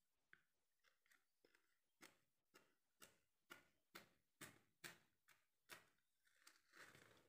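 Kitchen knife tapping down repeatedly through a slab of walithalapa onto a banana leaf as it is cut into pieces: a run of light clicks about two a second, getting louder in the middle, then a brief scraping rustle near the end.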